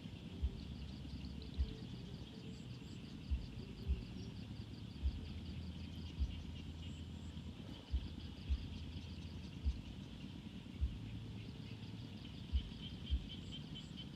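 Rural outdoor ambience: repeated trains of rapid, high chirping calls, with a dull low thump about every second over a steady low rumble.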